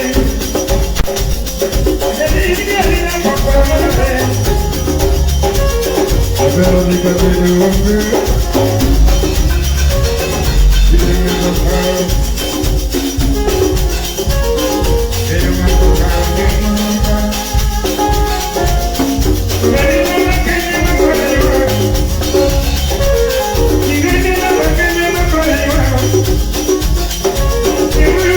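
Live band playing music with a steady beat and strong bass, with melodic lines over it.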